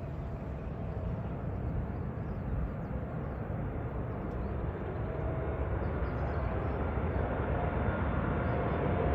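Boeing 747's four jet engines on landing approach: a steady rumble that grows slowly louder as the airliner comes closer, with a faint whine appearing in the second half.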